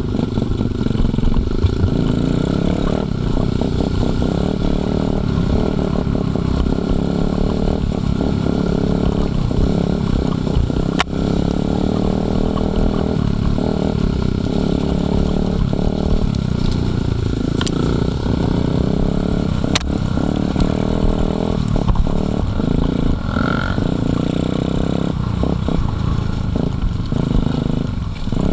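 Dirt bike engine running under way over a rough forest trail, heard from the bike itself, its pitch rising and falling with the throttle, with the clatter of the bike over bumps. A few sharp knocks stand out during the ride.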